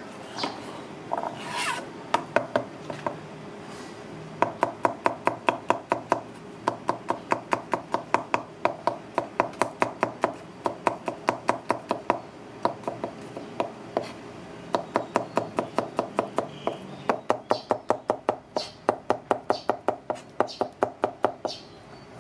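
Chef's knife slicing garlic cloves on a plastic cutting board: a fast, even run of knife taps, about four or five a second, starting about two seconds in.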